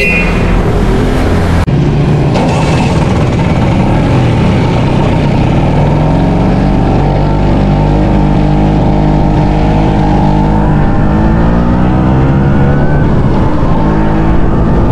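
Two-stroke Vespa PX scooter engine running under way, with wind and road noise. Its pitch climbs as the scooter picks up speed.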